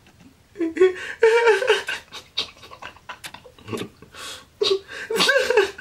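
A young man laughing hard in repeated breathy, high-pitched bursts, starting about half a second in.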